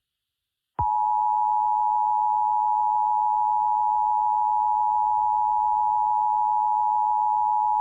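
Emergency Alert System attention signal: a steady two-pitch tone at 853 and 960 Hz, starting under a second in, with faint hiss beneath.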